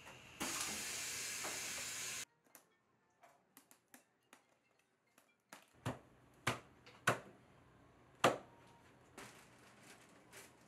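Butchering sounds: a steady hiss for about two seconds that stops abruptly, then soft clicks and several sharp knocks of a knife working through meat against a cutting board.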